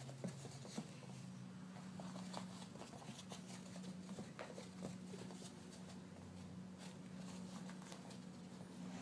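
Faint scratchy patter of a puppy's paws scrabbling on carpet as it spins around chasing its tail, over a low steady hum.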